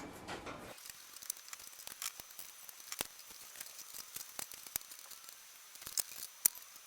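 Scattered light clicks and taps of metal parts being handled on an old bandsaw's blade guide and thrust bearing assembly, with one sharper click about six and a half seconds in.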